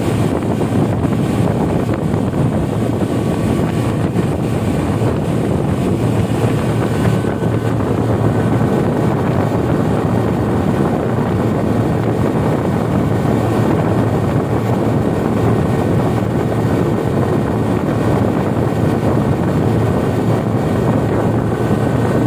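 Speedboat's outboard engine running steadily at speed, with hull and water noise and wind buffeting the microphone.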